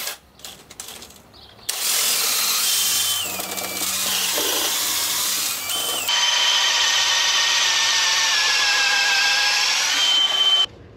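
Power drill with a long bit boring out a hole in a wooden hull, enlarging it for a steering-cable tube. The motor whine starts about two seconds in, dips in pitch as the bit bites and recovers, then stops sharply near the end.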